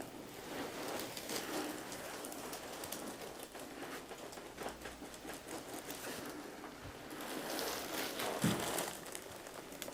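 Faint rubbing and rustling of hands working on skin and the table cover during a deep tissue leg massage, with scattered soft clicks.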